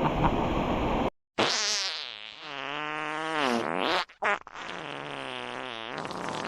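Comedic fart sound effect: two long, wavering, pitched farts one after the other, set in dead silence.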